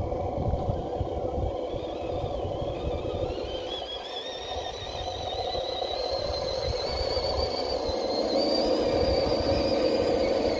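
Electric motor and gearbox whine of a six-wheeled RC truck towing a Traxxas TRX-4 on a rope, the wavering whine climbing in pitch from about two seconds in as it picks up speed under load, over a low buffeting rumble.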